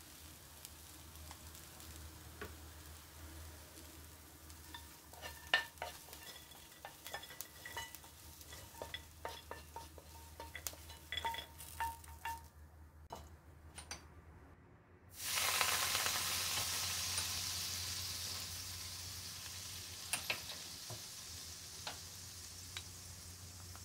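A spatula stirring and tossing dried shrimp and almonds in a nonstick frying pan, with light clicks and scrapes. About fifteen seconds in, liquid seasoning hits the hot pan and sizzles loudly, the hiss slowly dying down as it bubbles.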